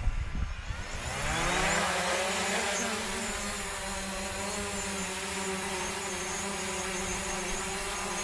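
Quadcopter drone's motors and propellers spinning up for takeoff: the pitch rises over the first two seconds or so, then settles into a steady hum with a faint high whine as it hovers.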